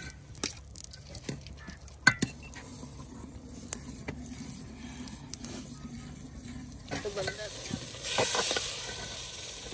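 Semolina halwa sizzling in a pan as it is stirred, the spoon clicking and scraping against the pan again and again. About eight seconds in, the sizzle swells up loudly for about a second.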